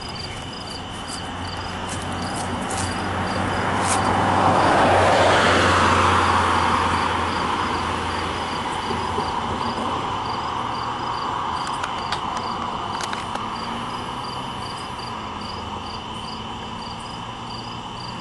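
Double-stack intermodal freight cars rolling slowly past: a steady rolling rumble with a few sharp wheel clicks, swelling to its loudest about five seconds in and then easing. Crickets chirp steadily throughout.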